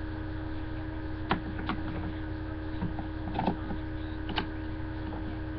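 Steady low hum of background room or recording noise, with a few faint, scattered clicks and taps.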